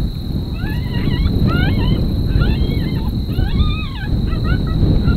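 Coyote yips and short howls, a string of rising and falling calls, over wind rumbling on the microphone.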